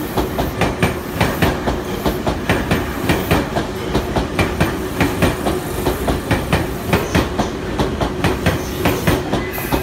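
Tobu 100 series Spacia electric express train running past, its wheels clacking over the rail joints in a steady, rapid rhythm of about three clicks a second over a continuous rumble and a steady hum.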